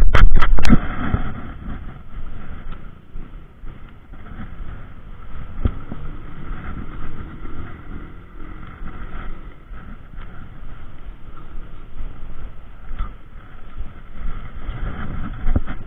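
Wind rumbling on the microphone over a steady rushing noise, with a few sharp knocks in the first second.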